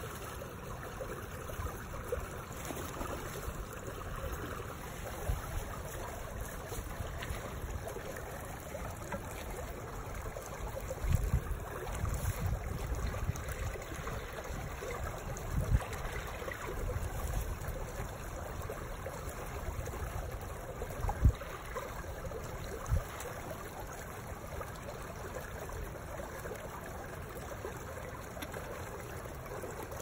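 Steady rushing of running water, with a few sharp low knocks from handling gear partway through.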